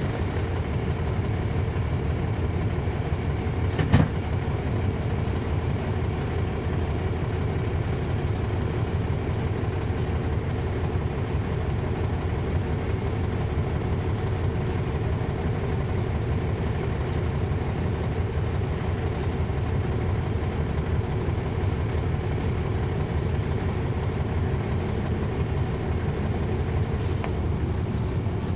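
Caterpillar C13 diesel engine of a NABI 40-SFW transit bus heard from the rear of the cabin, running steadily with its engine cooling fans on. A single sharp knock sounds about four seconds in.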